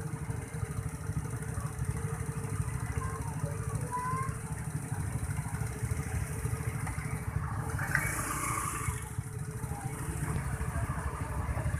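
Motorcycle engines idling together in a queue, a steady low rumble, with a brief louder sound about eight seconds in.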